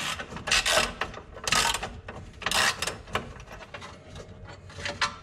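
Ratchet wrench loosening the mounting bolts of a dirt late model's steering rack: several short bursts of clicking about a second apart, the strongest in the first three seconds.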